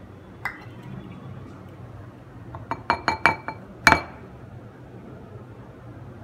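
Glass mixing bowl clinking under light knocks while powdered sugar is tipped in: one small click, then a quick run of clinks about three seconds in, and the loudest, ringing clink about a second later.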